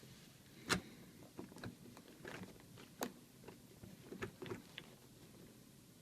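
A plastic coin tube being worked open by hand: a sharp click about a second in, another about three seconds in, and smaller clicks and scuffs of handling between them.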